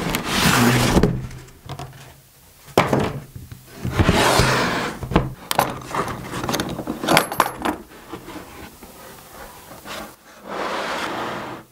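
Unboxing handling noise: a cardboard box scraping and sliding as a hard plastic tool case is drawn out, then a run of sharp clicks as the case's plastic latches snap open and the lid is lifted.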